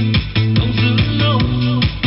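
A song with guitar, a strong bass line and a steady beat playing through a Sansui SG2-12 portable trolley speaker, a 30 cm (12-inch) woofer model.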